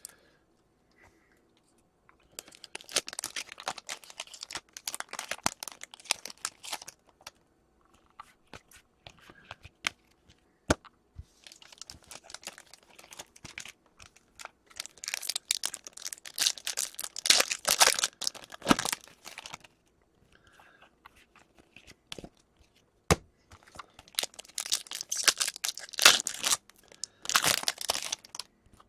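Trading card pack wrappers being torn open and crinkled by hand, in three bursts of several seconds each with short quiet gaps and a few sharp clicks between them.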